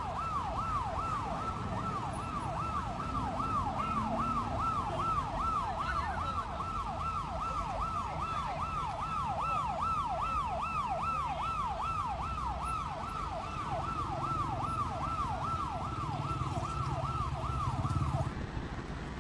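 Emergency vehicle siren in a fast yelp, its pitch sweeping up and down about two to three times a second over a steady low street rumble. The siren cuts off near the end.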